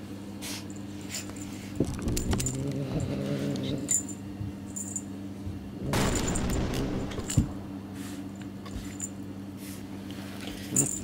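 Calico kitten growling low while biting and wrestling a feathered cat-teaser toy, a growl about two seconds in and another around six seconds. The toy's small bell jingles now and then.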